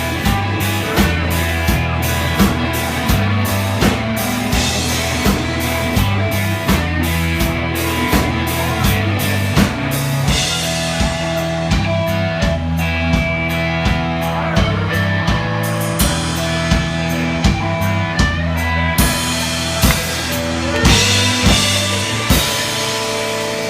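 Rock band playing live, an instrumental passage with a drum kit keeping a steady beat over changing bass notes.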